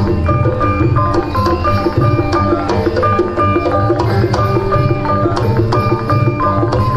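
East Javanese gamelan accompaniment for the Remo dance, played through loudspeakers: quick hand-drum strokes over ringing metallophone notes, with a deep low tone beneath.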